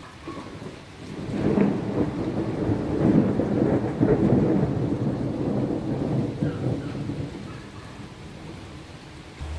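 A long roll of thunder builds about a second in, rumbles loudest for several seconds, then fades away near the end, over rain.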